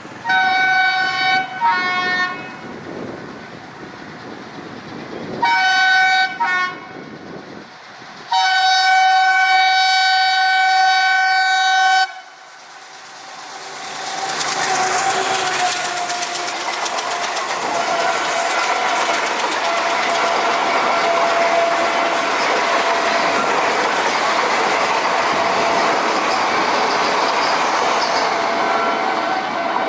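WDP-1 Alco diesel locomotive's horn: a blast and a short one, the same pair again a few seconds later, then one long blast of about four seconds. After that the train runs by, with a steady rush of wheels on rails that swells and stays loud.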